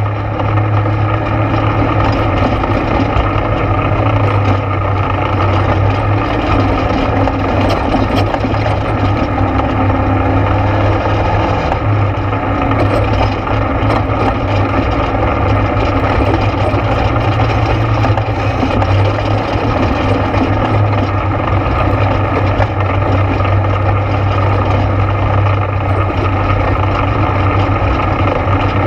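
ATV engine running steadily while riding along a trail: a loud, even, low drone that holds level throughout.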